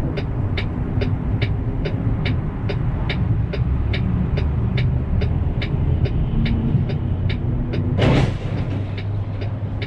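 Truck engine idling with a steady low rumble, heard from inside the cab, with a regular ticking about twice a second. A short burst of hiss about eight seconds in.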